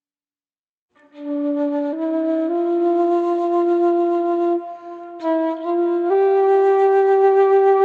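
Flute playing a slow, calm melody of long held notes that step gradually upward, starting about a second in after silence, with a brief breath pause midway.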